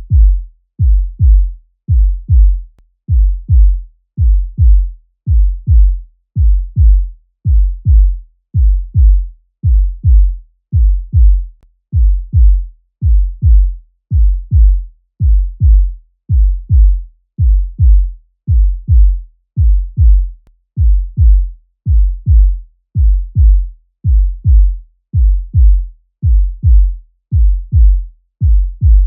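Human heartbeat sound effect: a steady lub-dub, each beat a pair of deep, low thumps, repeating a little faster than once a second.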